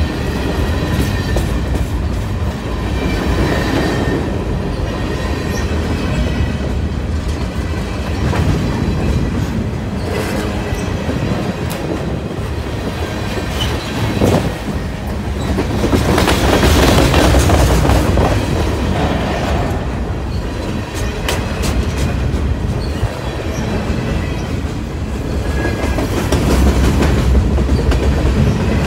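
Freight cars of a CSX manifest train rolling past at close range: a steady rumble of steel wheels on rail, with clicks as the wheels cross rail joints and faint squealing from the wheels. The rumble swells for a couple of seconds around the middle and again near the end.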